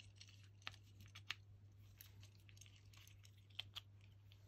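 Faint small clicks and taps of hands handling an opened plastic three-pin plug and a screwdriver while wiring it, the sharpest just over a second in and a close pair near the end, over a faint steady low hum.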